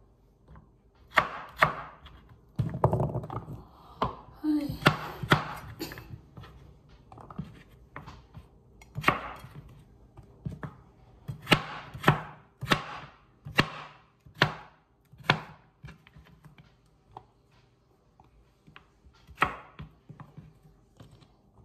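Kitchen knife chopping carrots on a cutting board: a string of sharp, irregularly spaced knocks as the blade strikes the board, with a few soft handling noises between cuts and a short pause in the chopping near the end.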